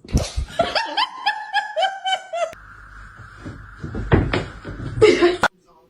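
A person laughing in a quick run of high-pitched bursts that fall slightly in pitch, followed by about a second of steady hissing noise and a few sharp knocks.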